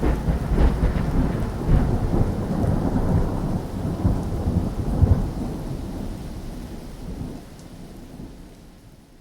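Rolling thunder rumbling over steady rain, starting suddenly and dying away over several seconds.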